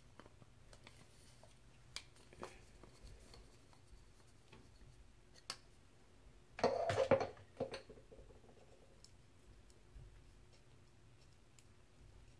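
Faint clicks and ticks of a screwdriver and small metal parts on a motorcycle carburetor as the float-pin screw is backed out and the float handled. A louder rattle lasting about a second comes a little past halfway.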